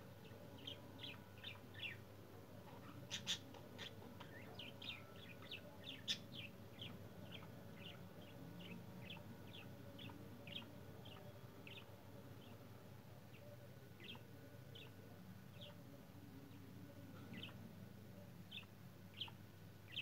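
Budgerigars chirping faintly: a run of short, high chirps, close together for the first ten seconds or so and sparser after, with two sharper clicks about three and six seconds in.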